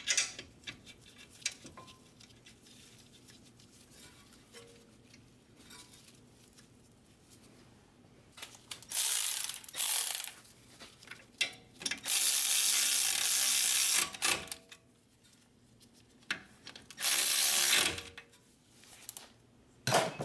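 Pneumatic air ratchet running in three bursts, the middle one about two seconds long, spinning a brake caliper bolt in. Before that there are a few light clicks as the bolt is threaded by hand.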